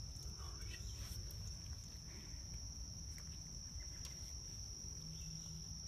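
Insect chorus holding one steady, high-pitched tone, with a low rumble underneath.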